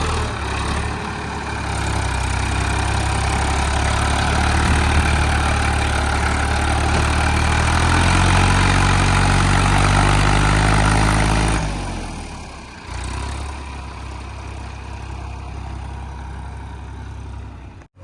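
Heavy diesel engine running loudly and steadily. About twelve seconds in it drops to a quieter, lower running. The sound cuts out for an instant near the end.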